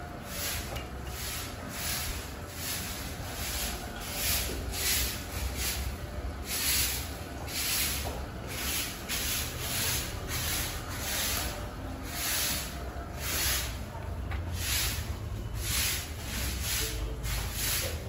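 Cattle eating chopped green fodder and straw at a trough: rhythmic rustling crunches, a few a second, as they pull and chew the feed.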